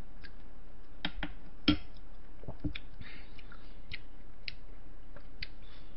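Scattered small clicks and taps of food and utensils being handled, with one sharper click a little under two seconds in as a wooden spoon is set down on a tray, and soft rustling as a pastry is torn apart by hand.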